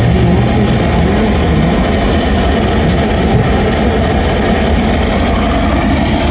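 Steady, loud rumbling noise, heaviest in the deep bass, with no distinct knocks or tones standing out.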